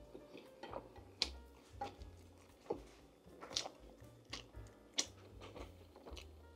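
Chewing and mouth clicks of someone eating: short, irregular smacks every half second or so, over soft background music.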